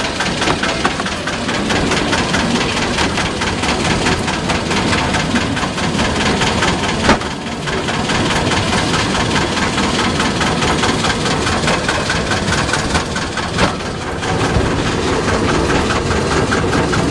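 Engine of a small narrow-gauge locomotive running steadily while it pulls the train, with an even rapid beat. One short sharp click about seven seconds in.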